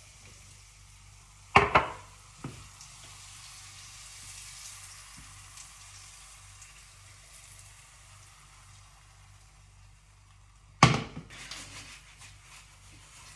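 Butter sizzling in a hot frying pan, a steady hiss. Two loud clatters of pan or utensil cut through it, about a second and a half in and near the end, followed by a few lighter clicks.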